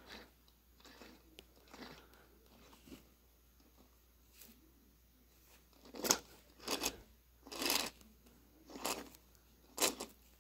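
Faint close-up handling noise: a few soft rustles, then a run of five short crunching, rustling sounds about a second apart in the second half.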